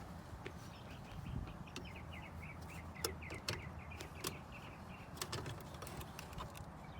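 Scattered light clicks and snaps of a screwdriver prying the plastic headlight switch module loose from the dash, with small birds chirping in quick runs in the background.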